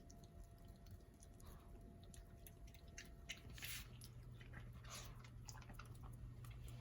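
Faint, scattered wet clicks and smacks of a Chihuahua puppy chewing a piece of cheese.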